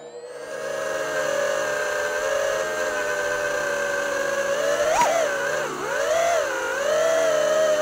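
FPV quadcopter's motors and propellers whining, steady at first, then rising and falling in pitch with throttle changes in the last few seconds. A single sharp click comes about five seconds in.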